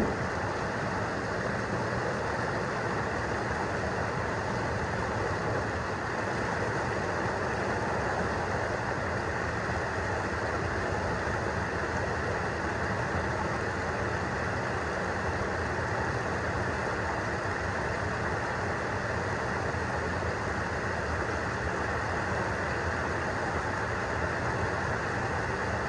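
Steady rush of river water pouring down a small rocky waterfall and foaming at its foot.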